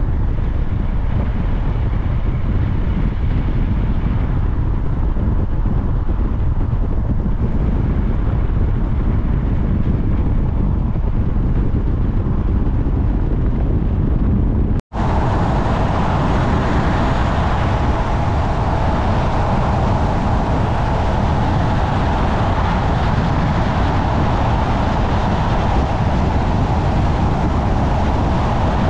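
Steady road and engine noise of a vehicle on the move. About halfway through the sound drops out for an instant and comes back brighter, with more hiss.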